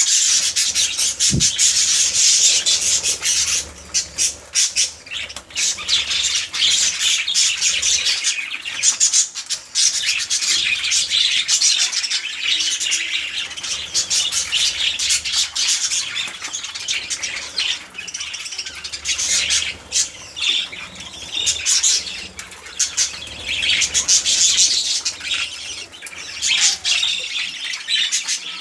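A group of budgerigars chattering and warbling continuously in a dense, high-pitched stream of chirps and clicks, with some wing flapping.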